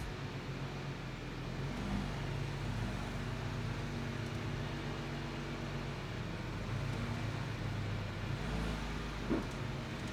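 Car lift's electric hydraulic pump running with a steady low hum as it raises the car; a single click near the end.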